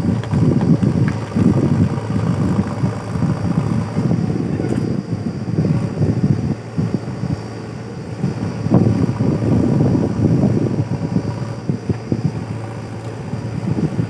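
JCB backhoe loader's diesel engine working under load as the backhoe bucket digs at a big tree's roots, its sound rising and falling in repeated surges.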